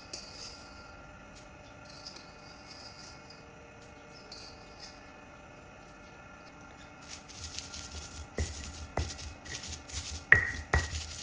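Kitchen work: faint background at first, then from about seven seconds in irregular knocks and clicks of utensils, with one louder ringing clink near the end.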